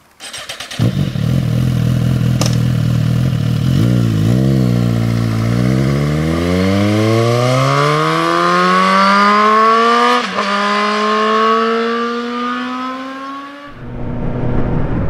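Suzuki GSX-R1000's inline-four engine comes in suddenly about a second in and runs steadily, revs briefly, then accelerates with a long rising pitch. One gear change, a quick dip and renewed rise, comes about two thirds of the way through, and the sound drops away suddenly near the end.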